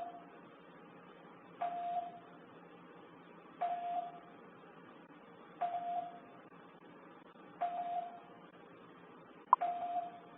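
Home security alarm sounding a short single-pitched chime about every two seconds, the tripped alarm signalling an intrusion.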